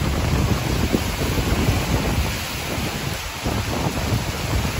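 Storm rain and wind: a steady hiss of rain while gusts toss the trees and buffet the microphone in irregular low rumbles.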